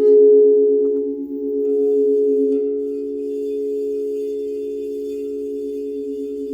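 Several crystal singing bowls ringing together: steady overlapping tones with a slow pulsing waver. The sound swells at the start and eases down over the next few seconds.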